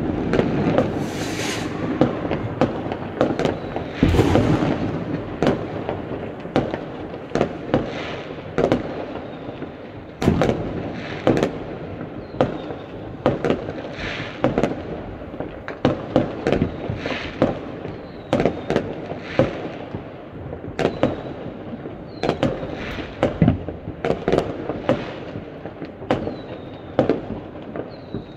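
Many fireworks going off across a neighbourhood: a dense spell of overlapping bangs and crackle for the first few seconds, then a string of separate sharp bangs, about one or two a second, over a continuous crackle of further fireworks.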